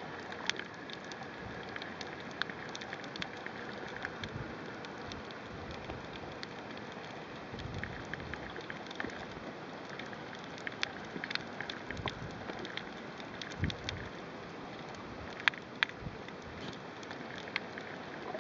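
Underwater ambience picked up by a camera held below the surface: a steady hiss with faint clicks and crackles scattered irregularly throughout.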